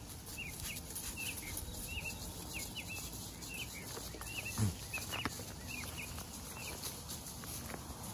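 A bird calling with short, high chirps repeated over and over, often in quick pairs, stopping about seven seconds in. A single low thump comes about halfway through.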